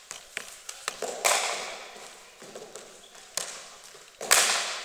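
Cricket ball impacts in an echoing indoor sports hall: three sharp cracks, each ringing out in the hall, the loudest near the end, with lighter taps and steps between.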